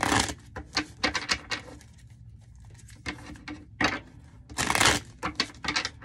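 Tarot cards being handled on a wooden table: irregular clusters of sharp snaps and rustles as the cards are shuffled and laid down, the loudest burst about five seconds in.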